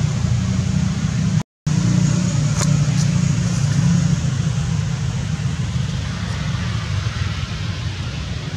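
Steady low rumbling noise, with a brief cut to silence about a second and a half in.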